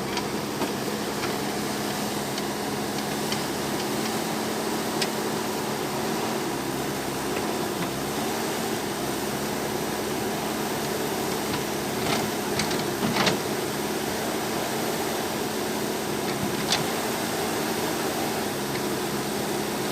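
JCB backhoe loader's diesel engine running steadily, with a few short knocks, most of them close together about two-thirds of the way through.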